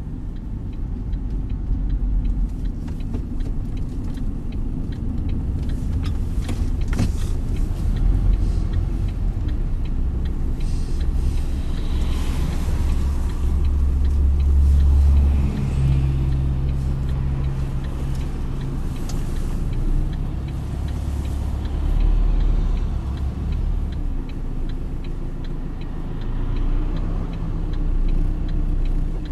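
Bus engine and tyre noise heard from the front of a moving bus: a steady low drone that grows louder about twelve seconds in and eases off again around sixteen seconds.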